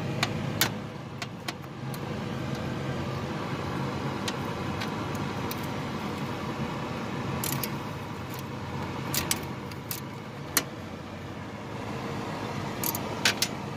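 Scattered small sharp clicks and light rattles of hands working the retaining clip and fuel lines off a CPI spider injector assembly, over a steady background hum.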